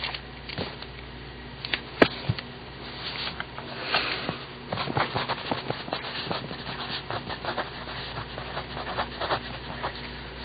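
Papermate Top-Notch mechanical pencil's 0.7 mm lead scratching across paper while writing, in quick irregular strokes, with a few sharp clicks in the first couple of seconds.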